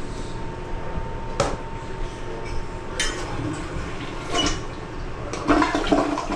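Steady rush of water as a toilet tank refills after a flush, with a few sharp clicks and knocks.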